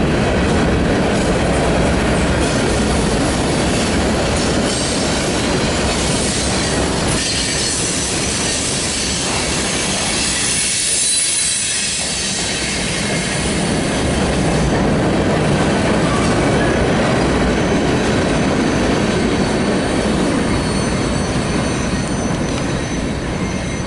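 Freight train cars rolling past close by, a steady loud rumble of steel wheels on rail with thin, high wheel squeals at times.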